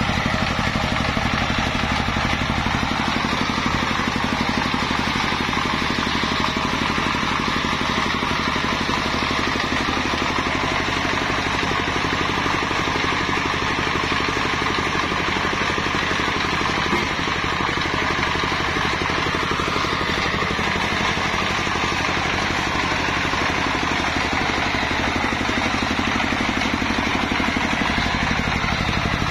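Single-cylinder diesel engine of a mobile circular-saw sawmill running steadily at speed, driving the saw.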